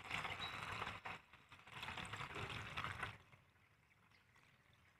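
Diesel fuel poured from a plastic jug into the near-empty fuel tank of a small diesel engine, a faint steady trickle and splash that dies away about three seconds in.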